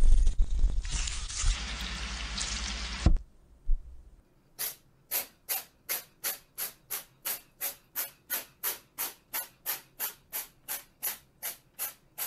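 A loud, dense noise for the first three seconds that cuts off. Then, from about four and a half seconds in, a steam locomotive chuffing: short hissing puffs at an even beat of about two a second.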